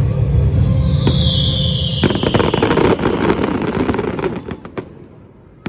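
Fireworks going off: a deep rumble of booms, a whistle that falls in pitch about a second in, then a dense crackling from about two seconds in that thins out and stops near the end.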